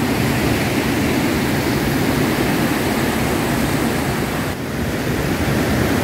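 Shallow river rushing over rocky rapids and a small weir, a steady, even rush of water.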